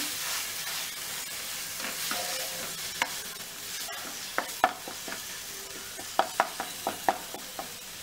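Green chili and ginger-garlic paste sizzling in hot oil in a non-stick frying pan while a plastic spoon stirs it. Sharp taps and scrapes of the spoon against the pan come through the steady sizzle, mostly in the second half.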